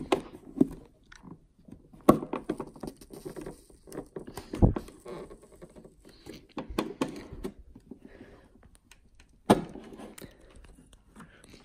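Clicking and scraping of a plastic card being worked through the double-sided adhesive under a car's third brake light to pry the lamp free, with four sharp plastic knocks spread through it.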